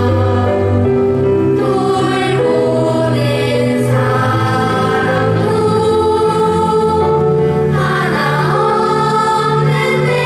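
Children's choir singing a slow song with long held notes over instrumental accompaniment with a low bass line, amplified through a stage sound system.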